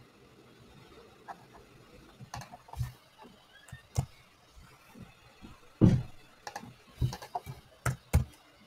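Computer mouse clicks and keyboard keystrokes: scattered, irregular clicks and taps, with a few louder knocks around the middle.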